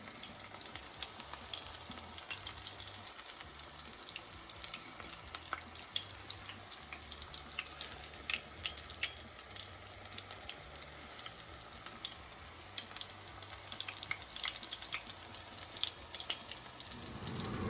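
Battered oyster mushroom pieces deep-frying in hot grease: a steady sizzle scattered with small pops and crackles.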